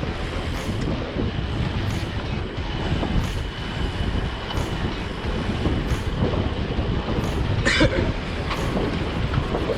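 Steady rush of wind on the microphone and tyre noise from a road bike riding at speed, with faint ticks about once a second and a brief crackle about eight seconds in.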